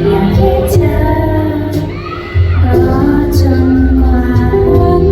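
A woman's voice singing a melody over backing music during a live sound check. The music dips briefly about two seconds in, then comes back in louder.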